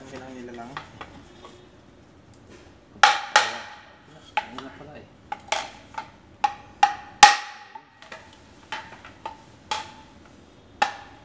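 Motorcycle front fork tubes slide-hammered together by hand at the oil seal: a series of sharp, ringing metal clacks, irregularly spaced, about fifteen in all, the loudest around three and seven seconds in.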